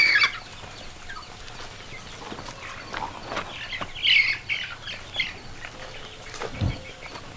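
A flock of free-ranging chickens clucking and peeping in short scattered calls, busiest about four seconds in. A single low thump comes near the end.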